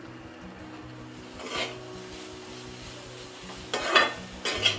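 A metal spatula scrapes and stirs chopped onions and shredded chicken around an aluminium wok in short strokes: one about a second and a half in, then two louder ones close together near the end. Faint background music with low, slowly changing notes plays underneath.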